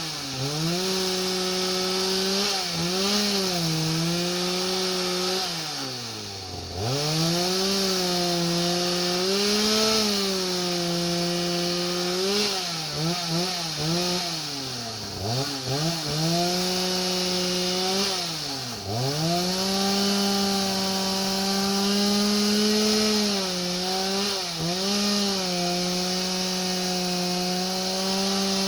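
Chainsaw (a '4900') driving a homemade sawmill, running at high revs while milling. The engine pitch repeatedly sags and recovers, dropping deeply three times: about six seconds in, near the middle, and about two-thirds of the way through.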